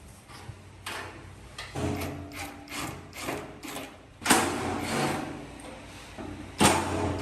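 A run of knocks and scraping from tools on metal, with two loud sharp clanks about four seconds in and near the end, each ringing on briefly like struck sheet metal.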